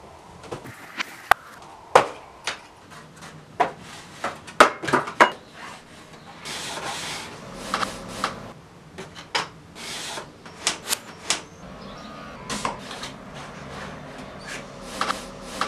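Stiff paper model parts being handled and pressed into place: irregular taps, knocks and clicks of card against card and the wall, with a few brief rustles.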